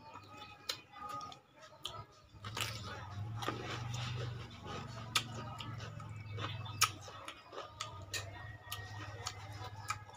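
Chopsticks clicking and tapping as they pick at grilled fish, mixed with mouth and chewing sounds. A low steady drone comes in about two and a half seconds in.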